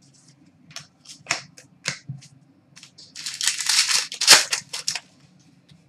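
Hockey trading cards being handled by hand: a few light flicks and clicks, then about two seconds of dense rustling and sliding of card stock, loudest a little after four seconds in.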